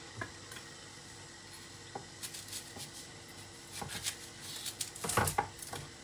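Kitchen knife cutting a red onion on a plastic chopping board: scattered light clicks and rustles of handling, then a quick cluster of louder knife strikes on the board about five seconds in.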